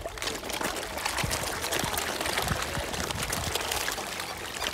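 Water churning and splashing as a dense crowd of koi carp thrash and gulp at the pond surface for food, a steady patter of many small splashes and slaps.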